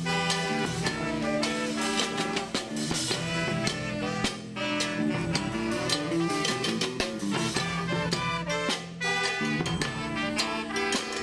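A street marching band playing: brass horns hold and change notes over a steady drum beat.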